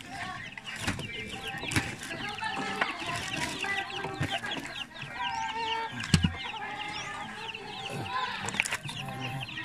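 Chickens clucking, with many short, quick chirping calls throughout, and a single knock about six seconds in.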